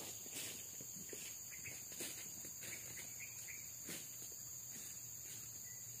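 Faint steady high-pitched insect drone, with a few faint short bird chirps in the middle and several soft ticks scattered through.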